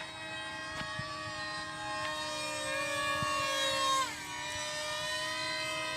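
Motors of model aircraft in flight whining in several steady tones at once, one of them dropping sharply in pitch about four seconds in.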